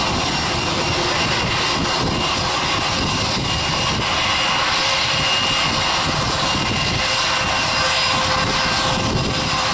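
Jet aircraft engines running on the tarmac: a steady rushing noise with faint steady whining tones and no sudden changes.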